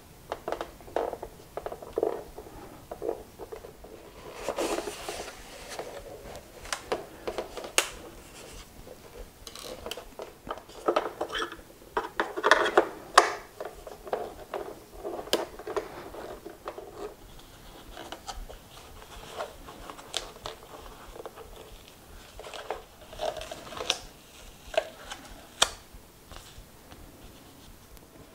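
A screwdriver working the screws of a Gotway Mten3 electric unicycle's plastic shell, and the shell panels being handled: irregular small clicks, ticks and scrapes, coming in a few busier clusters.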